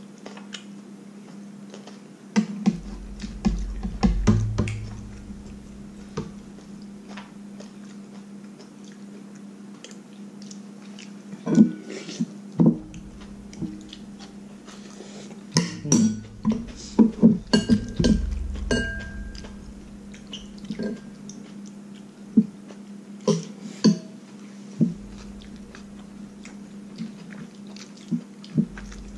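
Eating sounds: a metal spoon clinking and knocking against ceramic bowls, with chewing, in scattered clicks that cluster about halfway through, over a steady low hum.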